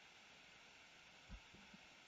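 Near silence: faint steady hiss of room tone, with one soft low thump a little past halfway.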